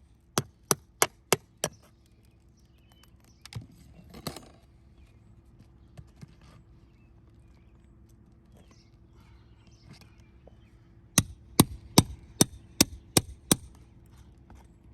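Hammer blows during asphalt shingle roof repair, in two quick runs of five or six sharp strikes at about three a second, one just after the start and one near the end, with a few faint knocks and scrapes between.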